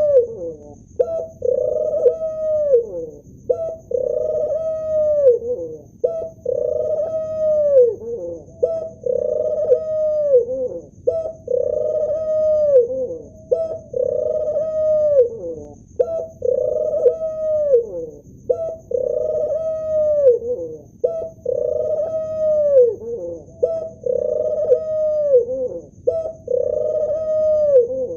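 Male ringneck dove cooing over and over, about one call every two seconds: a short note, then a long rolling coo that drops in pitch at its end. A faint steady high whine runs underneath.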